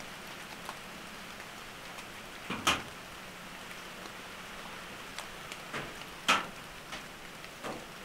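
Light rain or drizzle pattering steadily, with a few louder single drips, about three or four seconds apart.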